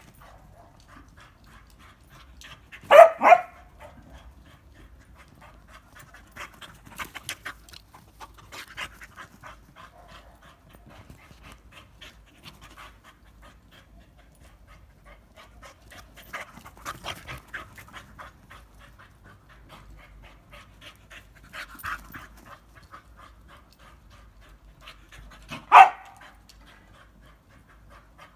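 English Springer Spaniel panting in quick breaths, with a short loud sound about three seconds in and another near the end.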